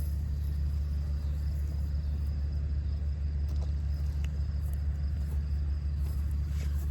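A steady low rumble, unchanging throughout.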